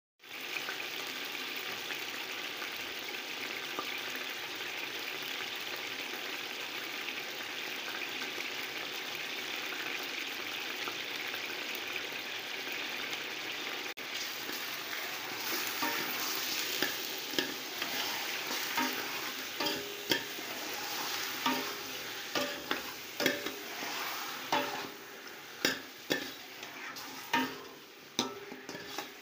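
Chicken wings sizzling in hot oil in a stainless steel pot, a steady hiss that starts abruptly. From about halfway a slotted spoon turning them knocks and scrapes against the pot, and the sizzle dies down near the end.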